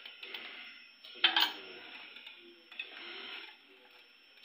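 Handfuls of frozen falsa berries dropping into a plastic blender jar and shifting in a steel bowl: a sharp rattling clatter a little over a second in, then softer clattering around three seconds in.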